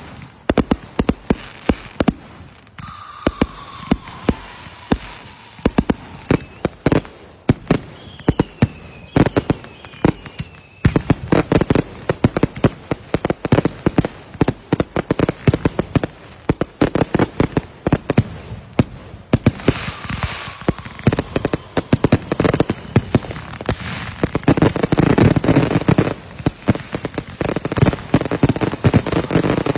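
Fireworks going off: a rapid string of bangs and crackling, with several whistles falling in pitch. The crackling becomes dense and continuous a little over a third of the way in.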